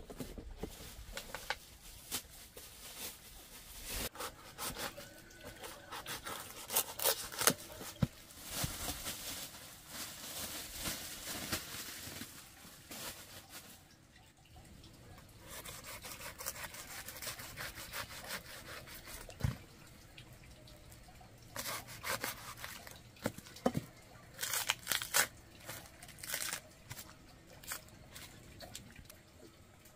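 Ripe jackfruit being cut with a knife and pulled apart by hand: the sticky flesh tears with wet clicks and smacks as the segments and bulbs are pried loose. It comes in spells with short pauses between.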